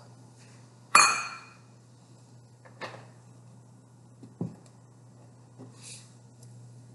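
A metal measuring cup set down with one sharp, ringing clink about a second in, followed by a few faint knocks and clicks of kitchen things being handled, over a steady low hum.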